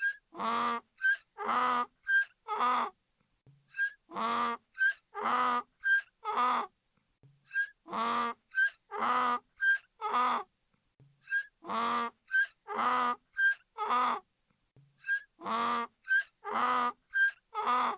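Donkey braying over and over: about five brays, each a run of roughly three hee-haws, a short high 'hee' followed by a longer, louder 'haw'.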